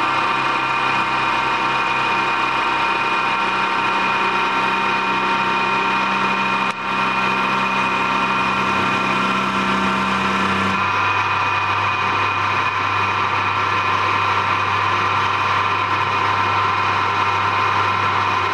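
CNC wood turning lathe running with a steady whine of several tones. About eleven seconds in the low hum underneath shifts down to a lower pitch.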